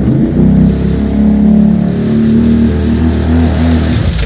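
ATV engine revving under load while wading through shallow floodwater, its pitch rising early on and then holding with a pulsing beat. A hiss grows in over it near the end.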